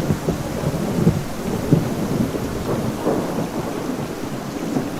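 A storm with heavy rain and a low, uneven rumble, which cuts off suddenly at the end.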